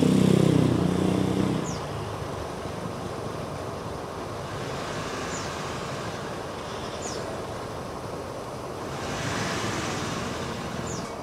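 A motorcycle engine running past and fading out within the first two seconds, then steady engine and traffic noise of the bus terminal, with a few faint short high chirps and a swell of passing-vehicle noise near the end.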